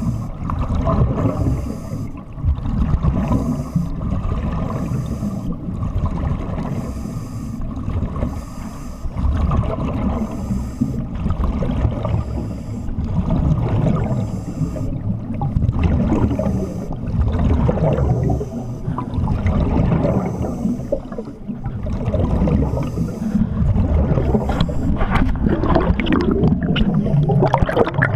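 Scuba breathing heard underwater: regulator hiss on each inhalation and rumbling, gurgling exhaust bubbles, repeating about once a second. The bubbling grows denser near the end.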